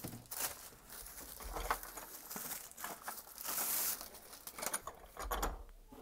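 Packaging being handled while a robotic pool cleaner is unboxed: irregular rustling and crinkling with scattered light knocks.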